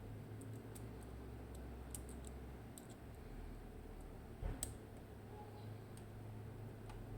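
Faint, irregular small clicks of a lock pick working inside a Mottura C55 dimple lock cylinder, with one louder click about four and a half seconds in.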